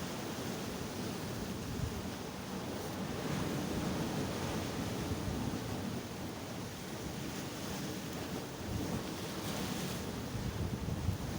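Sea waves surging and breaking on the shore in a continuous, swelling wash, with wind buffeting the microphone.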